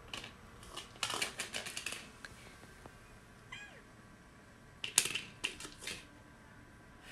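Ginger domestic cat at its food dish: two bursts of rapid clicking and clattering, with a single short meow falling in pitch between them. The cat is demanding more food.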